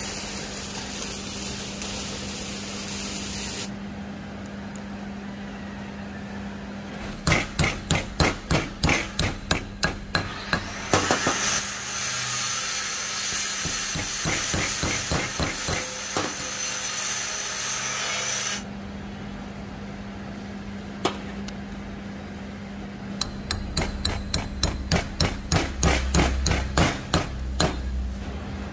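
Light hammer taps on steel parts, in two quick runs of about three to four taps a second, as bearing rollers are fitted together for a lathe steady rest. Between the runs there is a steady hiss.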